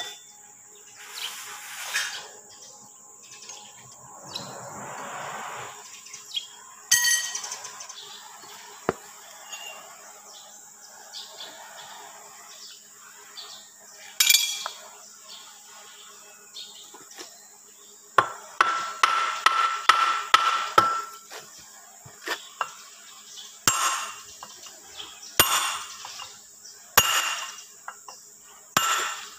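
Irregular sharp metal knocks and clanks as steel parts of a differential gear housing are struck with a hammer and handled during assembly. A quick run of ringing taps comes about two-thirds of the way through.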